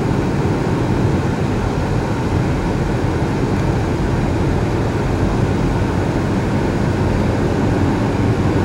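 Steady engine and road noise of a moving vehicle, heard from inside as it drives along.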